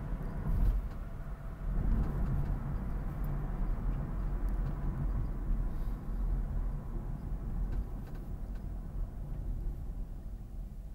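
Road noise from inside a moving car: a steady low rumble of engine and tyres on wet pavement, getting quieter near the end as the car slows.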